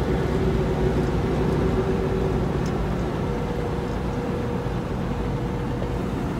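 Steady engine and road noise inside the cab of a moving semi-truck, with a faint steady hum under it.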